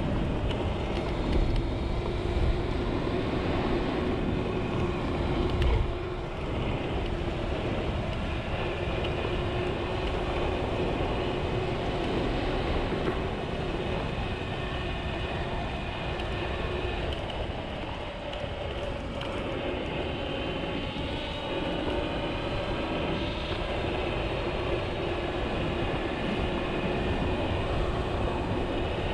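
Dualtron Spider electric scooter running flat out at about 50 km/h. Its motors give a steady whine over wind rushing across the microphone and tyre noise from the concrete path.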